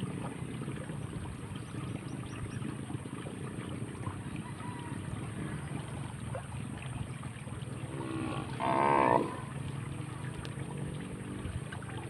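A cow moos once, briefly, about nine seconds in, the loudest sound, over steady outdoor ambience with a low hum.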